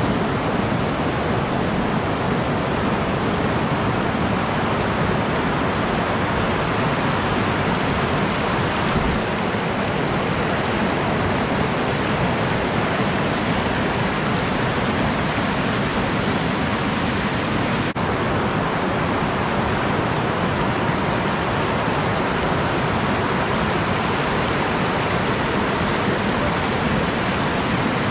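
Whitewater rapid rushing over boulders close to the microphone: a steady, unbroken wash of water noise.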